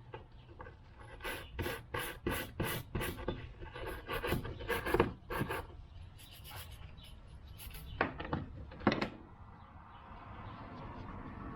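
Quick, irregular scraping and rubbing strokes on the rusted metal spring and parts of old hand pruners, followed by two sharper knocks about eight and nine seconds in.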